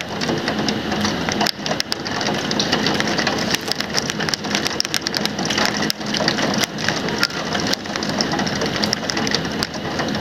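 Heavy rain hitting a windowsill: a steady rush of rain with a dense, uneven patter of sharp drop hits on top.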